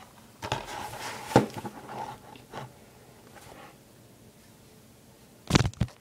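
A plastic DVD case being handled and set down on a hard surface: about two seconds of scraping and rustling with one sharp knock, then a quick cluster of knocks near the end as the camera is handled.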